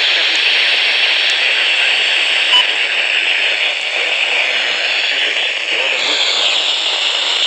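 Radio receiver hissing with steady static from a weak or empty channel, with one brief click about two and a half seconds in.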